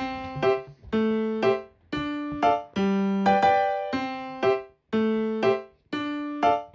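Background music: a keyboard tune in a steady rhythm, with a pair of notes about every second.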